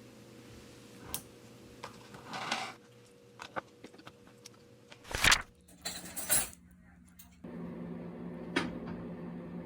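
Dishes and cutlery clinking and knocking at a meal: scattered light taps with one louder knock about halfway through. A steady low hum comes on near the end.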